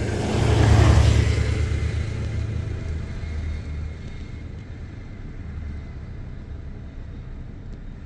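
A motor vehicle's engine and road noise: a low rumble with a hiss that swells to its loudest about a second in, then fades to a steady lower rumble.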